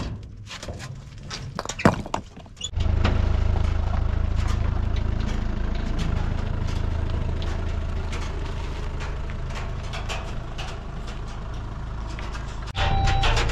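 Stones knocking against the steel bed of a pickup truck as they are handled, with one sharp knock about two seconds in. Then, after a cut, the pickup truck's engine runs steadily as it drives along, with light clicks over it.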